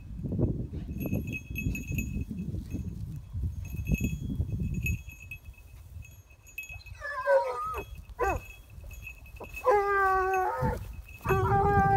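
A small bell on a hunting dog's collar tinkles in short pulses as the dog ranges through dry grass, over rustling and footsteps in the vegetation. From about seven seconds in, an animal gives several long, drawn-out calls, wavering at first and then held steady for about a second each, louder than the bell.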